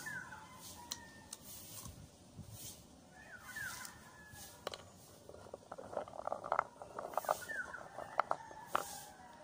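Birds chirping a few times in short falling calls, with a quick run of small, sharp cracks from about six seconds in, peanut shells being cracked open.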